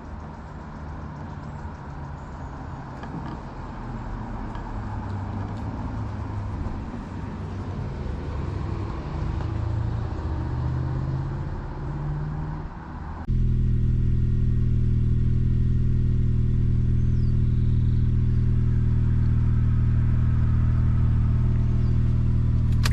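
Honda Fit GE8's four-cylinder engine running. For the first half its note shifts in pitch; then, about 13 seconds in, an abrupt cut brings a louder, steady idle.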